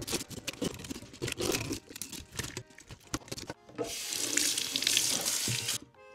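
Metal fish scaler scraping in quick irregular strokes over a largemouth bass's scales in a stainless steel sink; about four seconds in, the faucet runs water into the sink for about two seconds.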